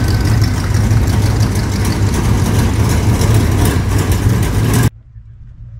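A car engine running at idle, a loud, low rumble that cuts off suddenly near the end.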